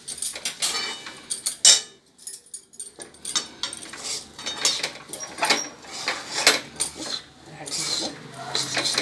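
Metal spoon scraping and clinking against a wok in irregular strokes as puffed rice is stirred into hot jaggery syrup, with a brief pause about two seconds in.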